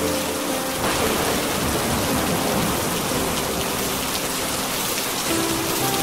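Steady rain falling, a dense, even hiss. Soft sustained music notes sound faintly under it at the start and again near the end.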